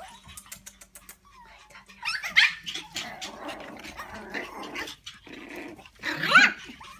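Small puppies play-fighting: loud high yips about two seconds in and again near the end, with rough play growling between them. A run of light clicks comes at the start.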